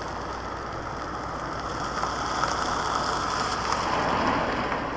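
Distant jet engines of a Boeing 777 airliner: a steady rushing noise that swells about two seconds in and eases again near the end.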